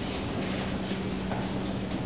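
Subway station background noise: a steady rumble with a low, steady hum that comes in about half a second in, and a few faint clicks.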